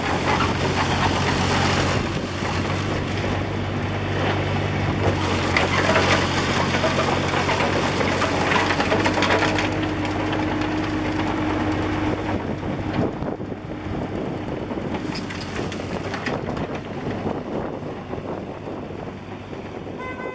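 2007 Bobcat 328G mini excavator's diesel engine running steadily, with knocks and scraping from the machine working. After about twelve seconds the steady engine tone drops away and the sound grows quieter, though the knocks go on.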